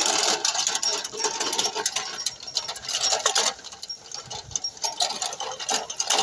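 Small plastic toy tractor with a tine cultivator pushed by hand over brick paving and loose soil: a dense clicking rattle and scrape from its wheels and tines.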